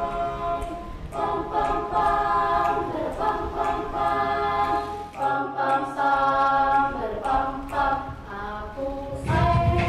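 Background vocal music: a choir of voices singing a cappella, holding notes that change every second or so.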